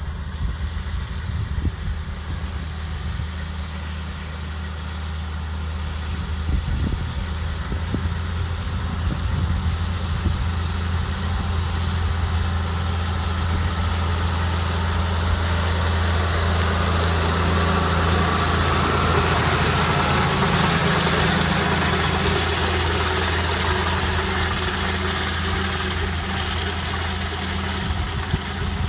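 Tractor engine running steadily as it pulls a Fransgard Ti 6000 cam rake spreading straw: a low drone that grows louder as the tractor comes closer, is loudest about two-thirds of the way through, then eases a little.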